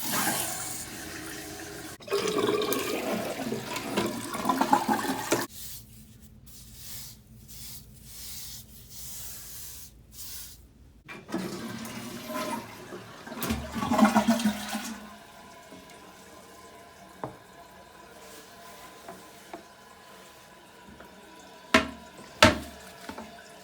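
Water rushing through a plumbing fixture in two loud spells, then running more quietly. Two sharp knocks come near the end.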